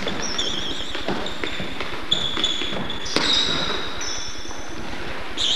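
A basketball bouncing on a hardwood gym floor, a few scattered bounces, with short wavering squeaks of players' sneakers as they cut and stop.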